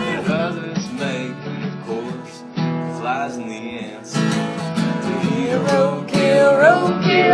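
Country-style song led by strummed acoustic guitar.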